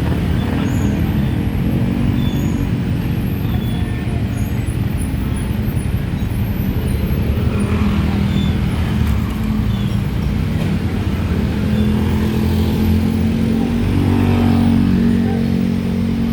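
Heavy diesel truck engines running in road traffic, a steady low engine note that strengthens and gets somewhat louder in the later part.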